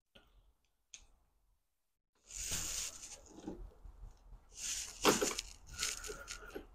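Car body parts being handled and fitted by hand: two small clicks, then from about two seconds in irregular scraping and rubbing of plastic trim, with a louder knock about five seconds in.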